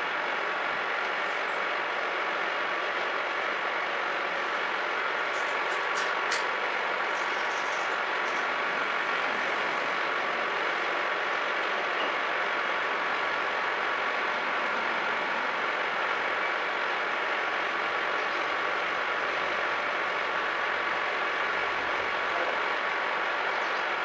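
Milling machine running steadily while cutting teeth in a steel pinion blank: an even mechanical hiss with a thin steady whine, and a few sharp clicks about six seconds in.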